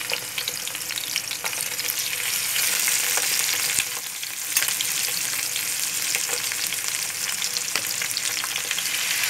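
Raw chicken pieces sizzling as they shallow-fry in a little hot oil in a pan: a steady hiss with scattered crackles, louder for a stretch about three seconds in.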